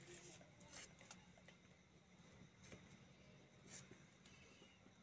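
Near silence with a faint low hum and a few faint, soft ticks from fingers peeling the skin off a boiled potato.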